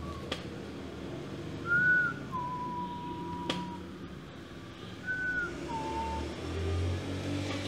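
A two-note whistle repeated about every three seconds: a short, higher note that rises and falls, followed by a longer, lower held note. Two sharp clicks sound, one near the start and one in the middle.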